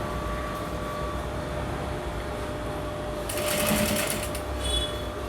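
Sewing machine running as it stitches a seam, steady throughout, with a louder stretch lasting about a second some three seconds in.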